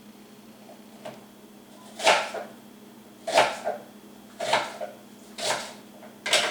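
Knife chopping on a cutting board, a sharp stroke about once a second.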